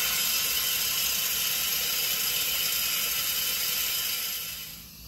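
Instant Pot pressure cooker's steam release valve venting in a quick release after pressure cooking: a loud, steady hiss of escaping steam that dies away near the end.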